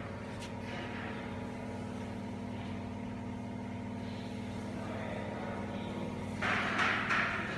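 Electrodynamic vibration test shaker system running: a steady hum with overtones. Near the end a louder airy hiss lasts about a second.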